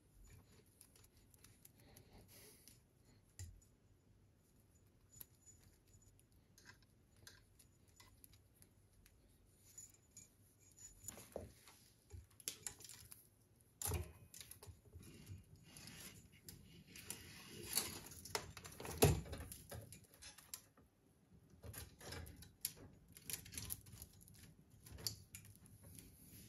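Bundle of thin plastic-insulated wires and black plastic sleeving being handled and sorted by hand: faint, irregular rustling and small clicks, with a few louder knocks and rustles a little past halfway.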